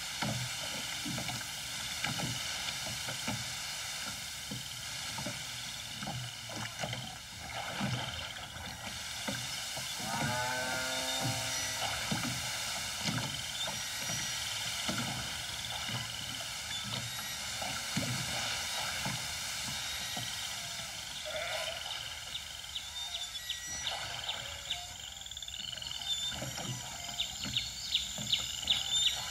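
Wooden rowboat oars working in their iron oarlocks, knocking and creaking in a rough rhythm of strokes, with a cow mooing once about ten seconds in. Near the end the knocks come faster and louder, a few each second.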